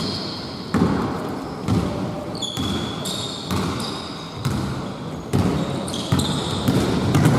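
Basketball being dribbled on the court, a bounce about once a second, with short high squeaks of sneakers on the floor.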